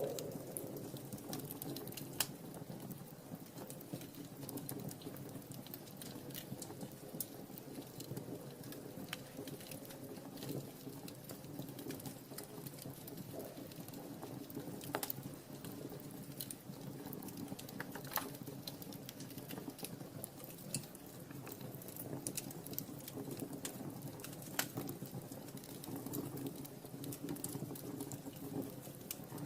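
Wood fire burning in a fireplace: irregular crackling with frequent small pops and a few sharper ones, over a soft low rustle of the flames.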